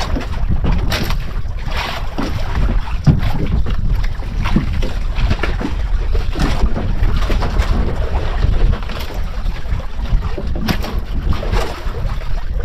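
Wind buffeting the microphone and water rushing past the hull of a moving outrigger fishing boat, a heavy low rumble with scattered irregular knocks.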